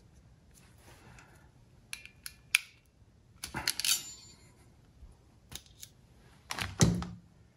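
Titan crimping pliers clicking as their jaws are released and opened off a freshly crimped ignition wire terminal: a few sharp metallic clicks, then a short rattle of clicks. Near the end comes a louder knock and clatter as the tool is handled and set down.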